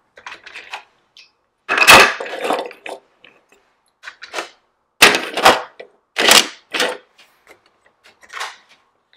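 Small toy cars and trucks clattering out of a plastic toy car-transporter truck and down its ramp onto a tabletop: about five separate bursts of rattling and knocking, the loudest about two seconds in.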